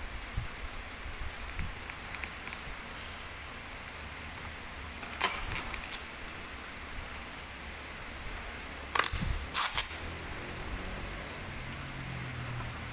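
Packaging being handled during an unboxing: two short clusters of sharp crackling, about five and nine seconds in, over a steady faint hiss.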